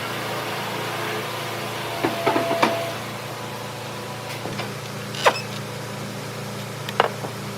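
A steady low machine hum with a few sharp knocks and taps: a short cluster about two seconds in, then single knocks about five and seven seconds in.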